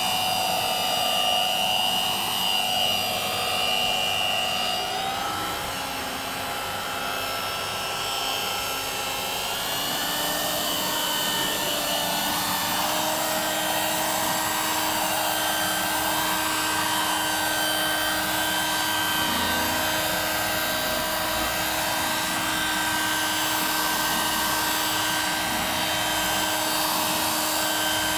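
Handheld power polisher with a polishing pad running on a gelcoat panel with compound: a steady motor whine. Its pitch steps up about five seconds in and again about ten seconds in as the speed is turned up from slow, then holds steady.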